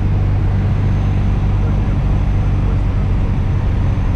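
A boat's outboard motor running steadily under way, a constant low drone.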